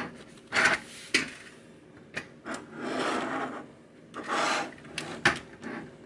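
Plastic toy figures being slid, turned and set down on a smooth tabletop: several separate scraping rubs, with a few sharp clicks.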